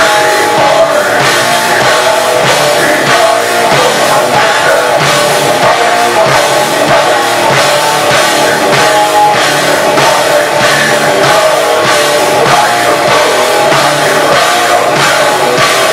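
Heavy metal band playing loud live: electric guitar, bass guitar and a drum kit with steady drum hits, and a vocalist singing into the microphone.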